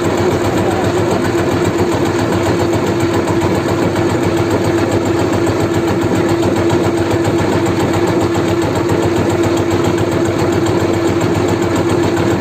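Engine running steadily at an even speed, with a constant hum.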